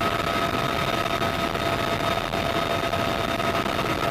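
Bell UH-1Y Venom helicopter's twin turboshaft engines and rotor running steadily, heard from inside the cabin with the door open: a steady high turbine whine over a dense rumble and rush of air.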